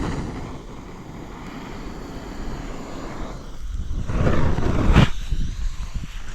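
Freshly lit campfire burning with a rumbling, wind-like noise that swells about three and a half seconds in, with one sharp crack about five seconds in.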